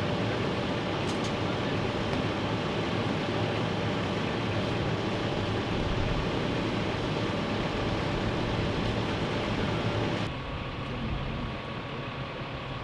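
Steady running noise of an idling emergency vehicle's engine. About ten seconds in it drops suddenly to a quieter steady hum.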